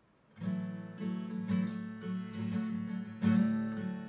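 Acoustic guitar in an alternate tuning playing the song's opening riff, starting about half a second in, with repeated picked and strummed notes over ringing low open strings.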